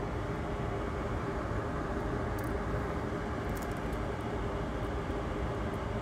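Steady low rushing noise of a running fan, with a faint steady hum and a few faint light ticks.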